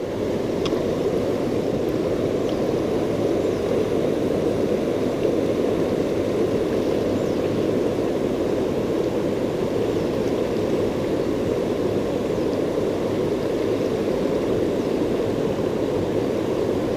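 Fast river water rushing over boulders and a weir: a steady, unbroken rush.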